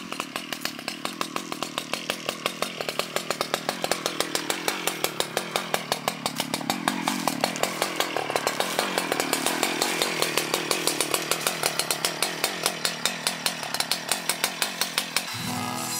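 A small petrol-engined cutting tool runs continuously while clearing brush. Its engine pitch rises and falls with a rapid, even ticking. Music comes in near the end.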